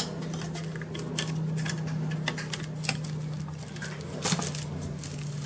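Light clicks and taps of small parts being handled as an M.2 SSD is fitted into a laptop's slot, with a sharper click right at the start and another about four seconds in, over a steady low hum.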